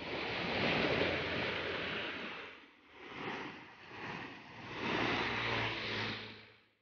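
Water rushing and splashing down a small drop in a concrete irrigation canal, a steady churning noise that swells and eases.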